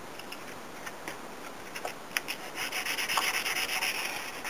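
Walnut knife-handle scale being sanded on 120-grit sandpaper to bring down a high spot in its middle: a few light scrapes, then from about two and a half seconds in a run of quick, louder back-and-forth sanding strokes.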